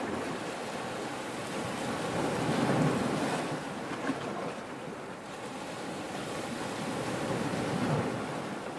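Ocean surf breaking and washing up the beach, a steady rush that swells twice, about three seconds in and again near the end.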